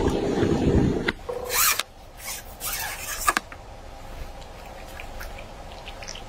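A hooked fish splashing at the water's surface for about the first second, then scraping and rustling with a sharp click a little past three seconds as the fish is drawn in past dry reeds.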